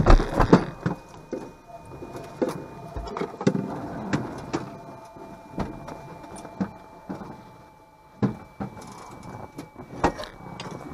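Irregular knocks and clicks of handling on a parked Cessna 208 Caravan with its engine shut down and propeller stopped, over a faint steady whine.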